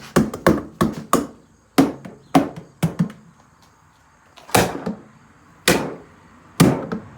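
Repeated heavy blows striking a refrigerator's cabinet as it is smashed apart: a quick run of hits, a pause of about a second and a half, then slower blows about one a second.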